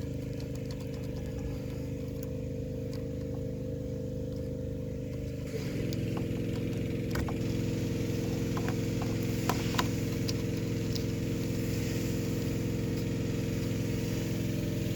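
Steady electrical hum from the CRT test setup feeding the picture tube's filaments. It steps up in level about five and a half seconds in, with a few faint clicks after.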